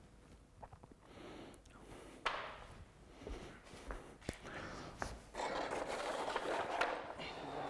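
Handling sounds of a large paper print: a sharp knock about two seconds in, a few light taps, then paper rustling from about five and a half seconds to near the end.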